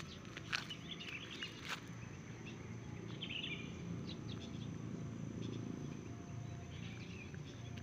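Outdoor evening ambience: scattered short bird chirps over a thin steady insect drone and a constant low hum.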